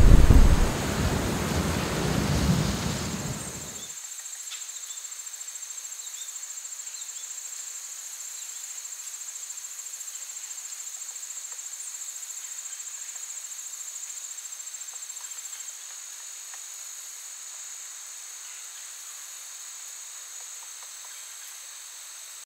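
A loud, rain-like rumbling dies away about four seconds in. Then a steady, high-pitched chorus of field insects, crickets by their trilling, with a fine rapid pulse, eases off a little about two-thirds of the way through.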